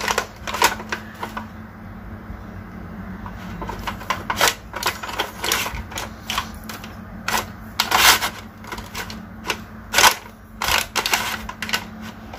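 Irregular clicks and clacks of an electric rotisserie oven's trays and fittings being handled, with a faint steady low hum beneath.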